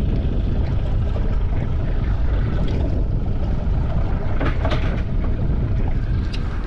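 Steady low rumbling wind noise buffeting the microphone on an open boat, with a couple of faint knocks about four and a half seconds in.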